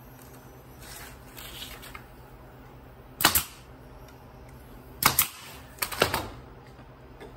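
Pneumatic nailer shooting nails into a wooden trim piece: sharp shots in three quick clusters, about three, five and six seconds in.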